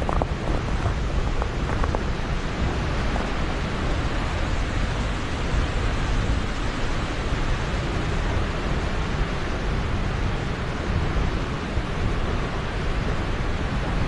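Steady rushing of Helmcken Falls, a high plunge waterfall, heard from the canyon rim, with a deep rumble underneath.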